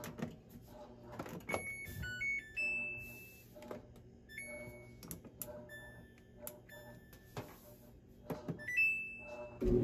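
Clothes dryer control panel beeping as its buttons are pressed and its dial turned: a string of short electronic beeps and small stepped chime melodies, with soft clicks of the presses. Right at the end the dryer starts and a steady low rumble begins.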